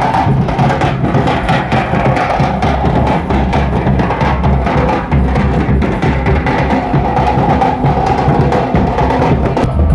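A procession drum ensemble of large double-headed barrel drums, Minangkabau tambua, beaten with sticks in a fast, continuous rhythm of deep booming strokes.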